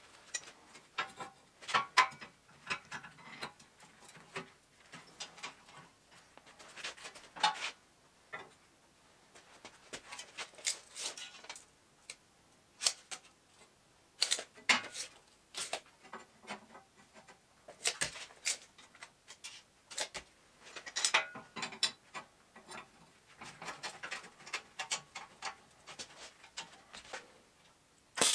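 Steel flat bars and short square-tube pieces being set down, shifted and clamped on a steel welding table: scattered metallic clinks and knocks, with screw clamps being tightened down on the steel.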